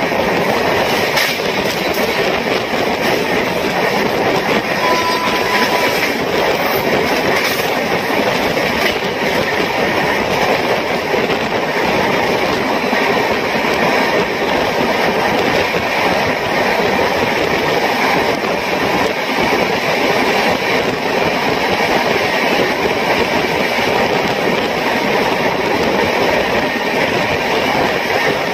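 Express passenger train running at speed, heard from an open coach doorway: a steady rumble and rush of wheels on rails mixed with wind noise.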